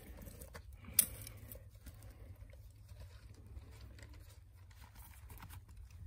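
Faint rustling and handling noise over a low steady hum, with one sharp click about a second in.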